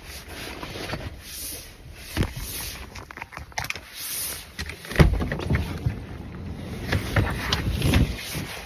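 Handling noises: scattered clicks, knocks and rustling from hands working with small hard objects, with one sharp knock about five seconds in.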